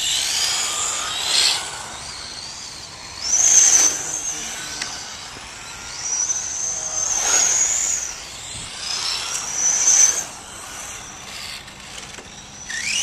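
Radio-controlled rally cars' motors whining high, the pitch rising as they accelerate and falling as they ease off, several times over, loudest in two short bursts.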